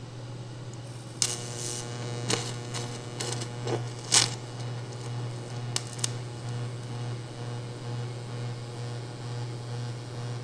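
A series of sharp metallic clicks and clanks from about a second in to about six seconds in, the loudest about four seconds in, over a steady low hum.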